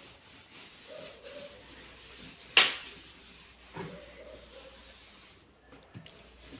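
A cloth rubbed over glass preserve jars in repeated wiping strokes, with a faint squeak, as dust is wiped off them. About two and a half seconds in a jar is set down with a sharp knock, and there are lighter knocks later.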